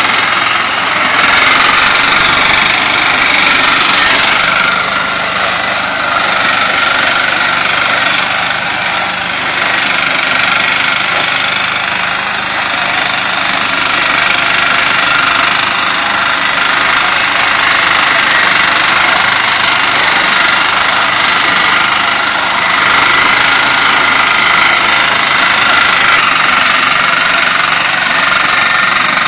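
Engine of a small walk-behind maize harvester running steadily as the machine works through standing corn.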